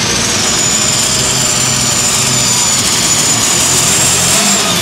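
A John Deere light super stock pulling tractor's turbocharged engine running flat out under load as it drags the sled, loud and steady. A high whistle climbs slightly, is held, and stops near the end.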